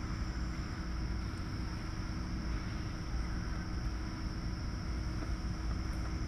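Steady mechanical drone and hiss of the pig barn, with a constant low hum and a thin high whine, unchanging throughout; no grunting or squealing stands out.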